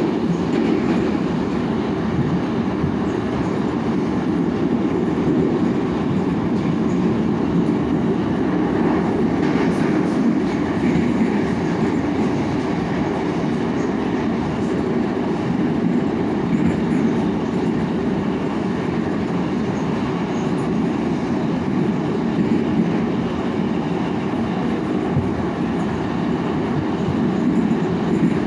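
Metro car (81-724.1) running through a tunnel, heard from inside the carriage: a steady, unbroken rumble of wheels and running gear on the rails.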